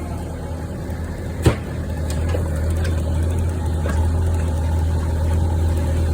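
A large engine running steadily with a deep, even hum, growing slightly louder after about two seconds. A single sharp crack sounds about a second and a half in.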